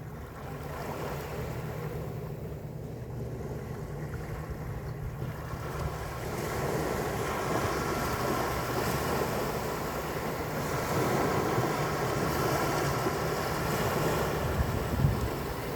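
Sea waves washing with wind buffeting the microphone, a steady low rumble under a hiss that grows louder about six seconds in.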